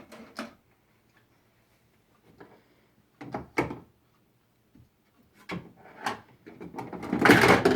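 Toy kitchen's stiff door and drawers being opened and pushed shut: a few sharp knocks partway through, then a longer, louder bout of scraping and knocking near the end as the door sticks.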